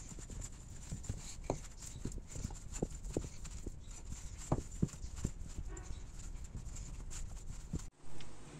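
Hand kneading a yeast dough in a bowl: irregular soft knocks, two or three a second, as the dough is pressed and pushed against the bowl. The knocking stops abruptly near the end.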